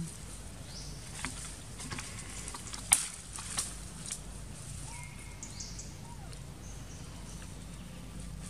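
Outdoor ambience of scattered dry-leaf crackles and rustles, with one sharper click about three seconds in. A few faint high chirps come and go over a steady low hum.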